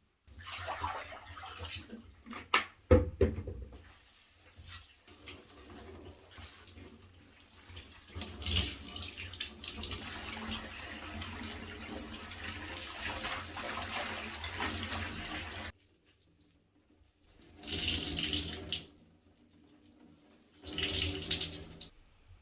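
Running water, steady for several seconds and then stopping abruptly, followed by two short bursts of running water. A few knocks and clatters come in the first few seconds.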